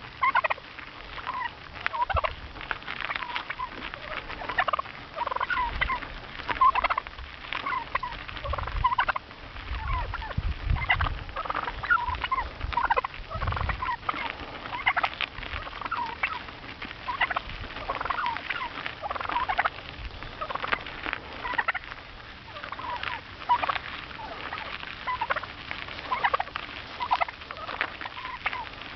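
Wild turkeys calling over and over, many short calls close together. A low rumble comes in between about eight and fourteen seconds in.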